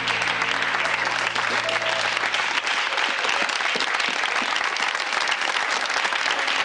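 Steady applause from a crowd, with low sustained music notes under it that fade out about two and a half seconds in.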